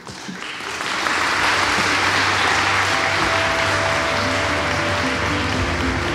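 Large audience applauding, building over the first second into steady, sustained clapping. Music starts playing under the applause about halfway through.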